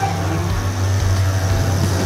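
Demolition derby cars' engines running together as the cars push against one another, a steady low rumble with no distinct crash in it.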